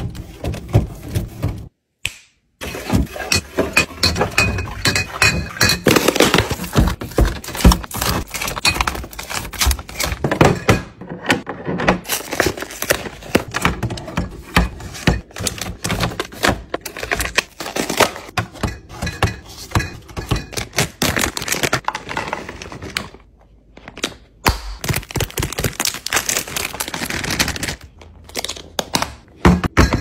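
Snack packages and plastic containers being set into clear plastic fridge bins: a dense run of clicks, taps and knocks of plastic on plastic, with a couple of brief pauses.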